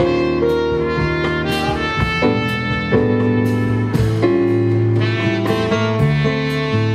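Jazz quartet playing live: a trumpet plays a melody line of held notes over electric bass, drum kit with steady cymbal strokes, and electric piano.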